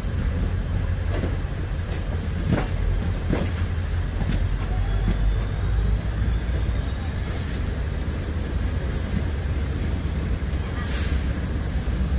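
Two passenger trains running side by side: a steady low rumble of coach wheels on the rails, with a few sharp clicks and knocks, and a thin high-pitched whine that rises in pitch from about four seconds in, then holds steady.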